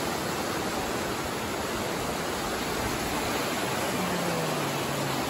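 Rocky mountain stream rushing over boulders in white-water rapids: a steady, unbroken rush of water.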